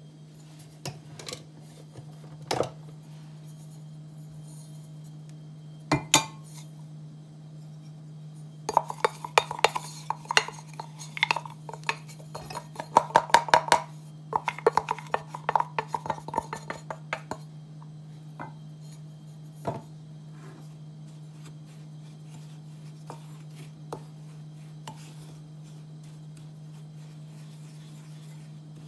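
Kitchenware clinking as ground herbs are emptied from a stainless steel spice grinder cup into a glass mixing bowl and stirred with a wooden spoon. After a few scattered clicks comes a dense run of rapid taps and clinks, loudest about midway, then only occasional clicks. A steady low hum runs underneath.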